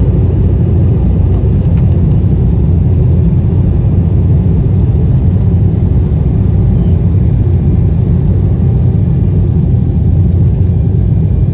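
Jet airliner cabin noise: a steady, loud low rumble of the engines and the airflow along the fuselage, unchanging throughout.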